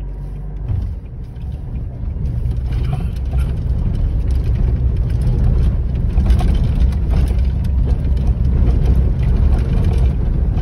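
Car cabin noise while driving on a rough dirt road: a heavy engine and tyre rumble, with frequent knocks and rattles from the bumpy surface. It gets louder about two seconds in.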